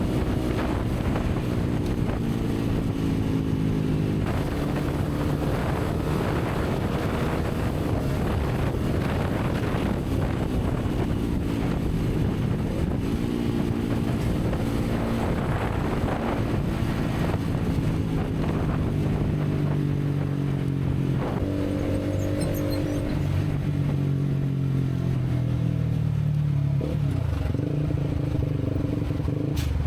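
Honda CBR150R's single-cylinder four-stroke engine under way, its pitch climbing and dropping back again and again as it revs up and shifts through the gears, with wind rushing past. Toward the end the pitch falls away as the bike slows.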